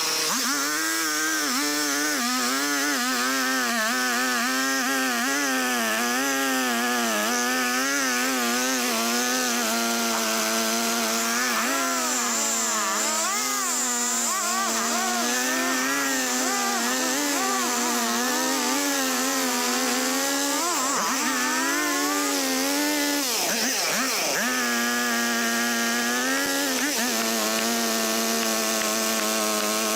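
Stihl two-stroke chainsaw running at high revs while cutting through wood, its pitch wavering under the load of the cut. Around 21 and 23 seconds in it bogs down sharply twice, then picks back up.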